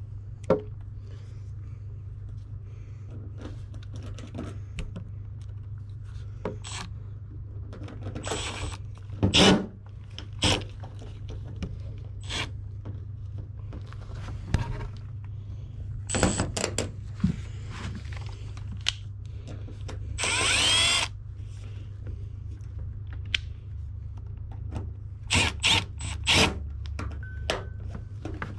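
Cordless drill driving screws to fix plumbing strap, in short runs between handling clicks and knocks. The longest run, about a second, comes about two-thirds of the way through. A steady low hum sits underneath.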